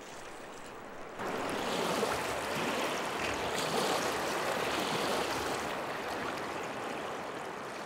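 River water flowing: a steady rushing that comes in about a second in and eases off slowly toward the end.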